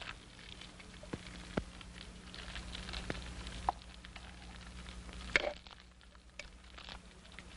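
A campfire crackling faintly, with scattered light clicks that fit a metal spoon knocking in a tin cup, over the hiss and hum of an old film soundtrack; a sharper knock comes about five and a half seconds in.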